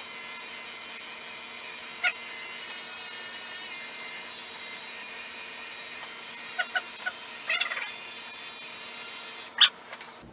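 FURminator deshedding brush scraping through an Australian Shepherd's thick double coat in steady strokes. A few short high squeaks come through, and there is a sharp click near the end.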